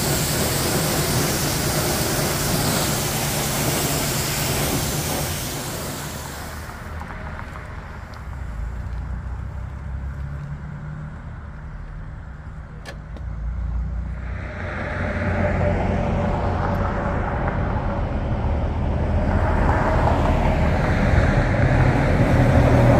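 Pressure-washer wand spraying a motorcycle, a loud steady hiss that stops about six seconds in; then a low vehicle engine rumble that swells about fourteen seconds in.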